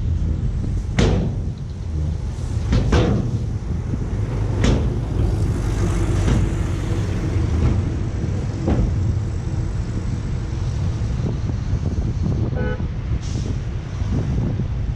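Diesel dump truck engines running while their raised beds tip out soil: a steady low rumble broken by a few sharp knocks, with a short pitched tone about three-quarters of the way through.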